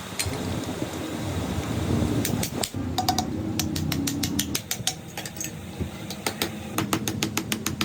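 Quick irregular runs of sharp clicks and taps from hand work on a car horn's parts, starting about two seconds in, over a low steady background rumble.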